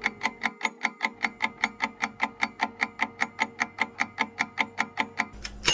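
Quiz countdown-timer sound effect: clock-like ticking, fast and even at about five ticks a second, ending near the end in a bell-like ding that marks time up.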